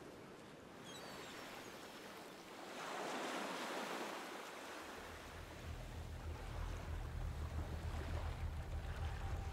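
Ocean surf washing on a beach, with one wave swelling and fading about three seconds in. A low rumble builds from about halfway.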